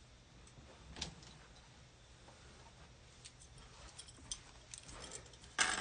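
Faint handling noise: a few light, irregular clicks and taps, then a brief, louder rustle just before the end.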